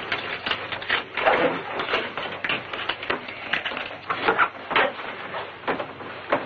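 Irregular clicks, knocks and rustles of leather straps and metal buckles being fastened around a woman seated in an execution chair, on an old film soundtrack with a dull, narrow sound.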